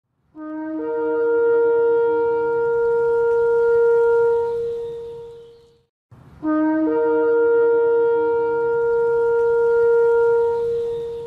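Shofar (ram's horn) blown in two long blasts. Each opens on a brief lower note, jumps up to a steady held note and fades out after about five seconds.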